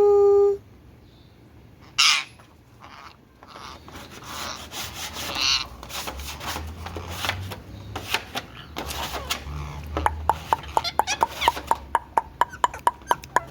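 Indian ringneck parakeet vocalising: a held pitched note at the start, a loud harsh squawk about two seconds in, scratchy chatter through the middle, and a rapid run of clicks over a steady tone in the last few seconds.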